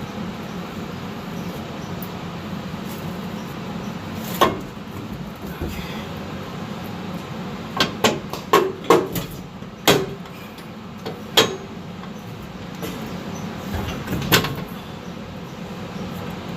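Sharp metal clanks and knocks from steel suspension parts and tools while a truck rear axle is worked into place and a control arm is fitted: single knocks, then a quick cluster of five or six halfway through, over a steady low shop hum.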